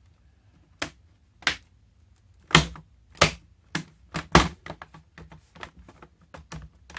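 Sharp plastic clicks and knocks from a laptop's case parts being handled and fitted back together, about half a dozen loud ones at irregular intervals, then fainter clicks.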